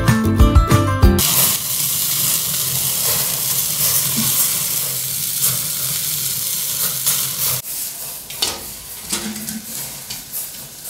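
Background music cuts off about a second in, then chorizo sausages on a fork sizzle over the glowing embers of a wood-burning stove, with small crackles from the fire. About two-thirds through the sizzling stops abruptly and only a few faint clicks remain.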